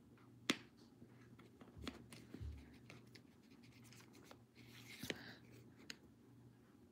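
Quiet room with a low steady hum and scattered faint clicks and light rustling, the sharpest click about half a second in.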